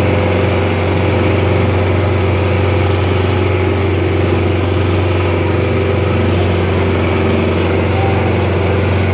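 Sonalika DI 750 tractor's diesel engine running steadily under heavy load as it drags a double harrow through soil.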